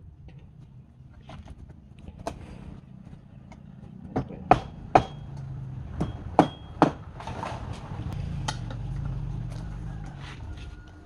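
A series of sharp knocks and taps on hard material, about six loud ones bunched together about four to seven seconds in, two of them with a brief metallic ring, over a low steady hum that grows louder in the second half.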